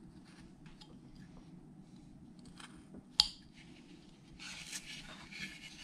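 Carving knife making small, light cuts in a wooden figure. A single sharp click comes about three seconds in, the loudest sound, and the last second and a half is rubbing and scraping as the carving is turned in the gloved hand.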